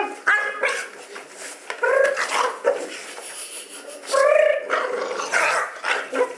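Small dog growling and barking in play while scrabbling around in its fabric bed: a string of short calls, the loudest about four seconds in, between scuffling on the bed.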